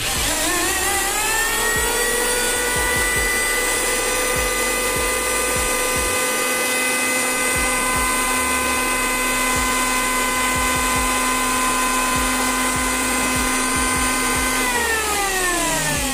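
Bosch GHO 10-82 electric hand planer running free: the motor's whine rises as it spins up, holds steady, then falls as it coasts down near the end. It runs smoothly after its bearing repair.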